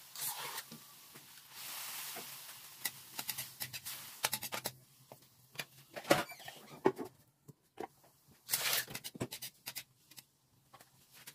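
Chicken gizzards sizzling in a hot aluminium wok: a hiss lasting about two seconds as liquid goes into the pan, then many sharp clicks and scrapes of a spatula stirring against the wok, with another short hiss near the end.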